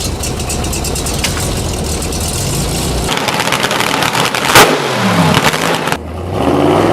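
Car engine running, its revs rising and falling, with one sharp bang about halfway through. It is cut together from separate clips, with an abrupt change to another engine clip near the end.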